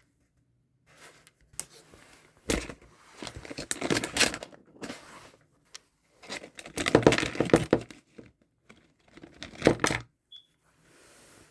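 Packaging crinkling and rustling as it is handled, in three bursts of a second or two each.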